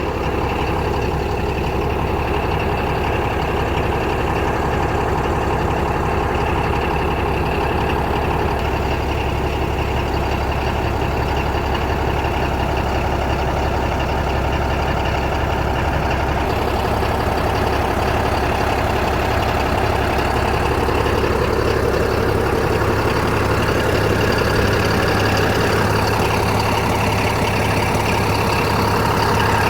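Komatsu D155A-6 bulldozer's diesel engine running steadily, a continuous deep drone.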